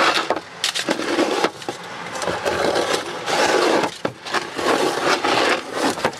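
A glass pickle jar and a bottle being picked up, shifted and set down on a refrigerator shelf, close by: a run of uneven clunks and knocks with scraping and rustling between them.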